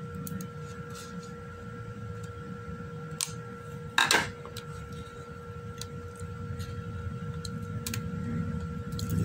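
Cardboard hard-drive retail box being turned over and picked at to open its sticker-sealed flap: scattered small clicks and taps, with one brief louder crackle about four seconds in, over a faint steady whine.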